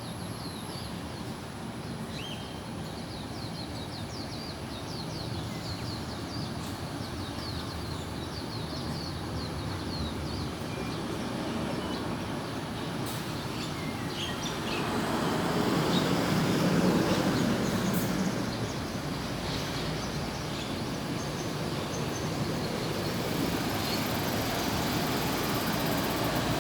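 A flock of small birds chirping together, many short calls overlapping, over a steady background rumble. About halfway through, a louder low rumble swells and fades.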